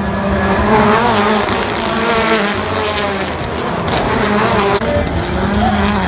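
Global Rallycross supercars' turbocharged four-cylinder engines revving hard as the cars race past. The pitch rises and falls repeatedly with throttle and gear changes.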